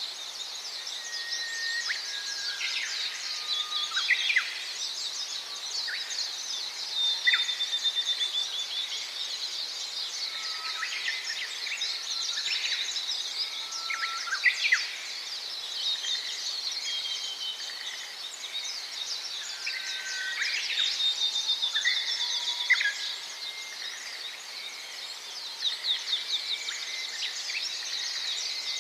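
A flock of Gouldian finches chirping and calling together: a dense chatter of high chirps, broken by short whistled notes and quick sweeps.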